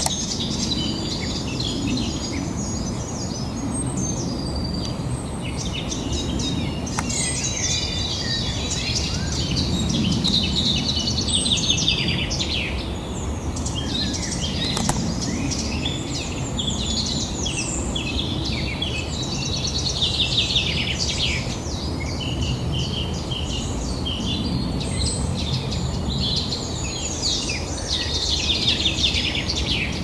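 Several songbirds chirping and singing continuously, many short trills and calls overlapping, over a steady low background rumble.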